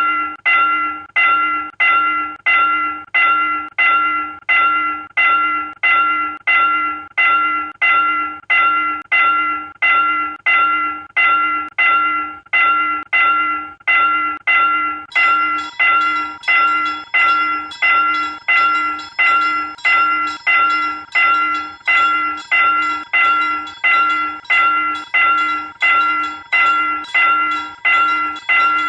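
South Korean railroad crossing warning bell ringing in an even, steady rhythm of about one strike a second, each strike fading quickly. About halfway through, a second, higher-pitched ringing joins it.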